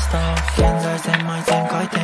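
Background pop music: sustained synth chords over a deep bass that drops out just under a second in, then a kick-drum beat.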